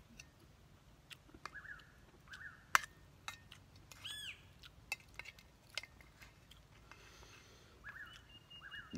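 Metal spoon clicking and scraping against an enamel bowl as rice is scooped, a string of sharp clicks. A bird chirps briefly several times, with one arched whistled call about four seconds in.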